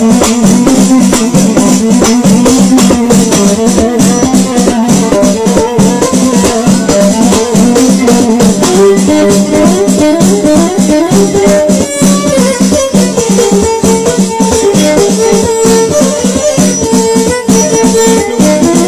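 Live Moroccan Amazigh folk music: a steady, fast rhythm on frame drums and rattling percussion under a melodic instrument line.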